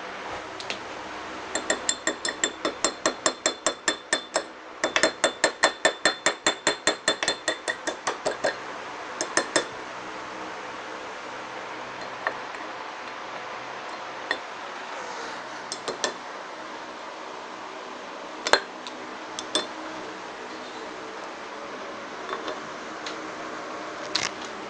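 Rapid metal-on-metal tapping with a ringing clink, about five or six strikes a second in two runs of a few seconds each, as a tool works the pin that holds the propeller on the outboard's shaft; a few single clicks follow.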